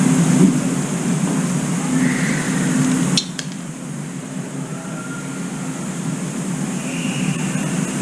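Steady low background hum with a single sharp click about three seconds in, after which the hum drops noticeably quieter. A few faint, short bird chirps come through the hum.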